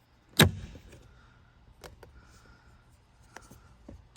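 A sharp knock about half a second in, then a few light clicks and rubbing: hand tools being picked up and handled.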